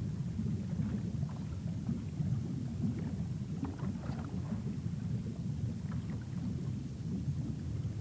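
Low, steady underwater rumble of moving water, with a few faint scattered clicks.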